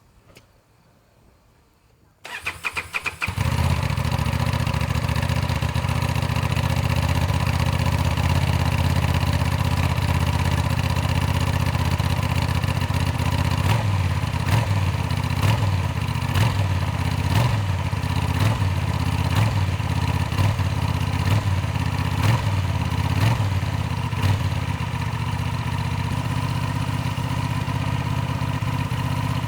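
Honda XL750 Transalp's 755 cc parallel-twin engine cold-starting: about two seconds in the starter cranks briefly, the engine catches and settles into a steady idle, a little quieter near the end.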